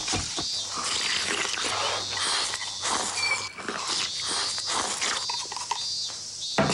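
A man noisily slurping, chewing and crunching chilled ochazuke (rice in cold tea with shredded nori) eaten straight from the bowl, a dense run of short wet slurps and crunches that swells to a louder gulp near the end.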